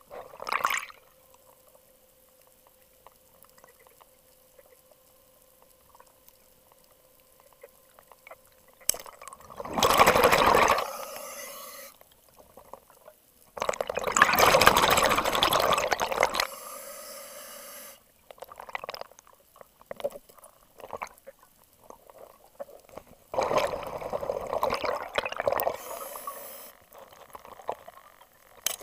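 Underwater breathing of a scuba diver: loud rushes of exhaled bubbles from the regulator come three times, each a few seconds long, with quiet stretches between.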